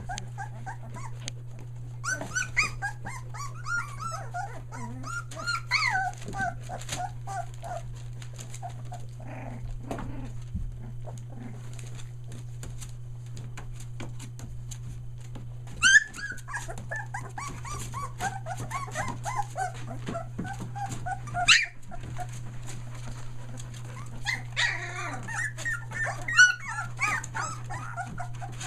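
Three-week-old Australian Shepherd puppies whining and squealing in bursts, with sharp high yelps about 16 and 21 seconds in, over a steady low hum.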